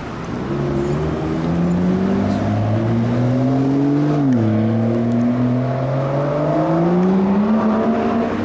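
Car engine accelerating: its pitch climbs, drops sharply about four seconds in as it shifts up a gear, then climbs again before levelling off.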